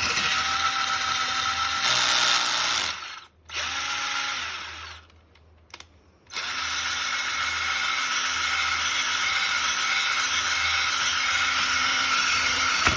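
Power drill running with its bit boring into ice, a steady whirring whine. It stops about three seconds in, runs again briefly, pauses for over a second, then runs steadily again.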